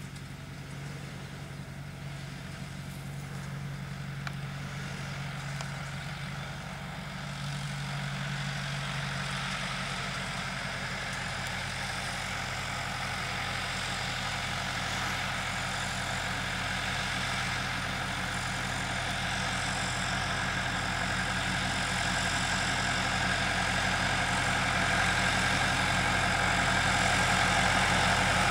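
Massey Ferguson 4345 tractor's diesel engine running steadily under load while pulling a Vicon Haybob 300 to row up grass. It grows steadily louder as the tractor approaches.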